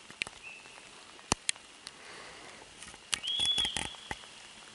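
Footsteps pushing through dry grass and birch scrub, with twigs cracking and snapping underfoot. A louder burst of cracking about three seconds in comes with a brief high-pitched tone.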